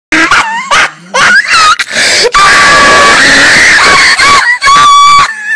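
A loud, distorted edited-in sound effect of high wailing cries that slide up and down in pitch, with a harsh, noisy middle stretch and a held note.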